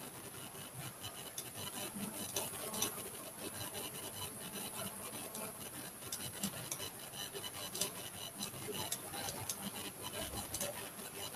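Faint scratching and irregular small clicks from drawing at a computer, over a steady hiss.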